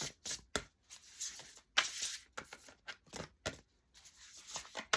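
A deck of oracle cards being shuffled by hand: a quick, irregular run of papery flicks and slaps.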